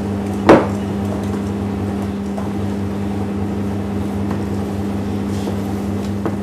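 A steady low hum throughout, with one sharp knock about half a second in as the mixing utensil strikes the glass bowl while stirring pumpkin into the flour for scone dough.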